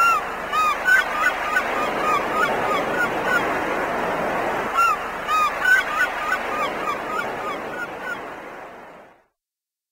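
Many short, arched bird-like calls over a dense steady noise, fading out near the end.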